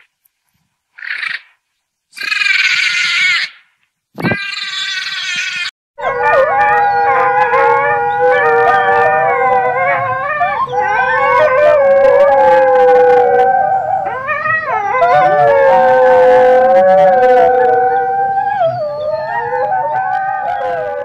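Wolves howling: a few short calls in the first seconds, then from about six seconds in several howls overlapping at different pitches, rising and falling.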